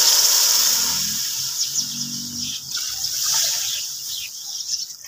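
Water poured into a pot of fried potatoes and masala in hot oil, hissing and sizzling as it hits; the loud rush fades after about a second to a quieter sizzle.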